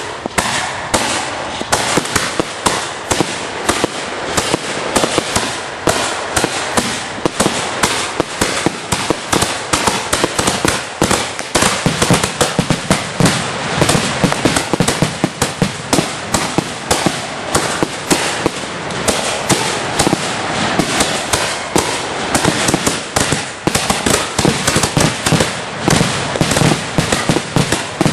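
Ground-level firework crackling continuously: a dense, unbroken stream of small sharp pops crowding together many times a second, throwing up a column of sparks.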